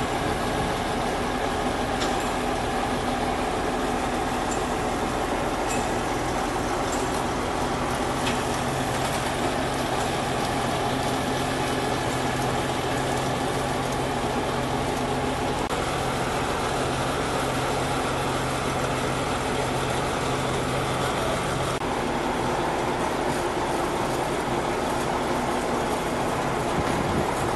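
Diesel engines of Caterpillar sideboom crawler tractors running steadily, with a constant hum that changes pitch and mix about three quarters of the way through.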